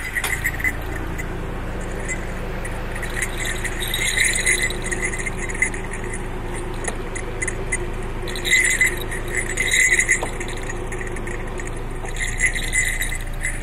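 Small metal jingle bells on a costume mask's horns jingling in three bouts, about four seconds in, around eight to ten seconds, and near the end, over a steady low engine hum.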